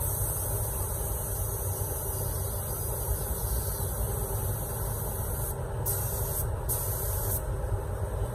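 Air spray gun, an Anest Iwata gravity-feed gun with a 1.3 mm nozzle, spraying with its trigger held, giving a steady hiss. The hiss grows louder in stretches around the six- and seven-second marks, over a steady low rumble.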